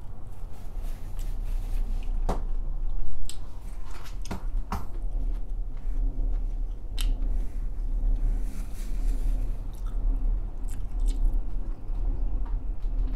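A person chewing a mouthful of meatless burger close to the microphone, with irregular sharp clicks of crunching and mouth sounds scattered through.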